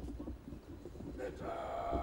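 A siren starts sounding about one and a half seconds in and holds a steady tone over a low background rumble.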